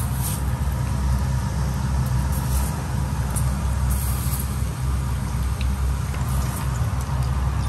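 Floured karaage chicken pieces going into a deep fryer, the hot oil bubbling and crackling, over a loud steady low rumble.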